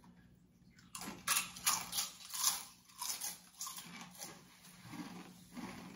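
Two people biting into and chewing the Paqui One Chip Challenge tortilla chip: about a second in, a run of sharp crunches starts, loudest over the next second and a half, then softer, irregular chewing crunches.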